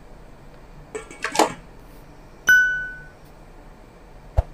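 A spoon scraping and stirring in a stainless steel pot of chopped tomatoes, then the stainless steel lid set down on the pot with a sharp clink that rings out briefly and fades. A short knock follows near the end.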